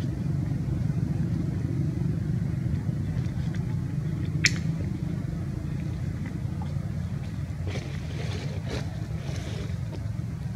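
A steady low rumble with a single sharp click about four and a half seconds in, and a few faint ticks later.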